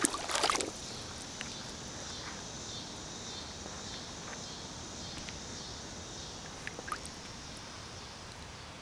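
Steady hiss of water running in a shallow creek, with a brief burst of knocks and handling noise at the start and a few faint clicks a little before the end.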